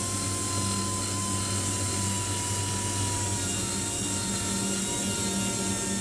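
Die grinder with a 40–60 grit emery cartridge roll grinding hardened port filler in a big-block Chevy cylinder head's intake port: a steady high whine whose pitch sags slightly as the roll is loaded against the filler, over a steady low hum.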